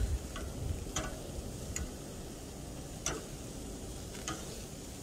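Jumbo shrimp and scallops sizzling softly on a gas grill's grates, with about five sharp, spaced clicks of metal tongs as the shrimp are turned.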